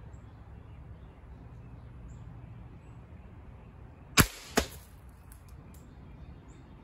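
A single shot from a .25-calibre Umarex Origin PCP air rifle, a sharp crack, followed less than half a second later by a second sharp, slightly quieter knock as the can on the target chair is hit and knocked off.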